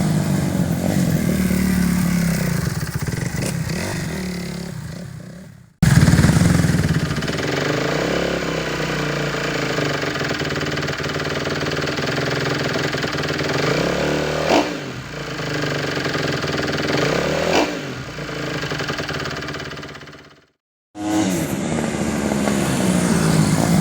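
Dirt bike engines revving and running, in several separately edited pieces with sudden cuts between them. The engine pitch rises and falls throughout, with two brief louder moments in the middle.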